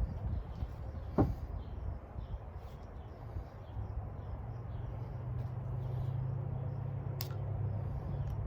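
Two sharp metallic clicks from working a CV axle boot clamp with hand tools, one about a second in and one near the end, over a low steady hum that grows louder about halfway through.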